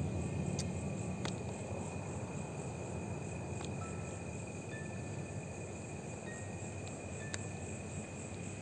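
Night insects such as crickets trilling steadily over a low background hiss, with a few faint clicks.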